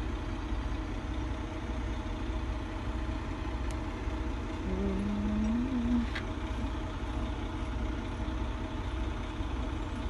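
Steady low mechanical hum that pulses evenly, with a person's short hummed voice about five seconds in.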